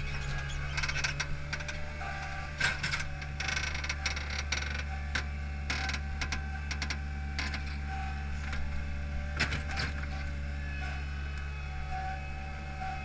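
A Hydromak paving machine's engine runs steadily with a faint high whine, while its Probst stone clamp rattles and knocks as the machine moves, with clusters of clanks about two and a half seconds in and again near ten seconds.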